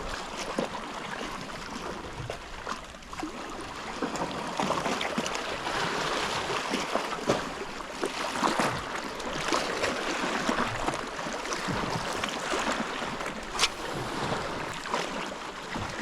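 Sea water washing and sloshing against shoreline rocks in an irregular, swelling hiss, with a single sharp click late on.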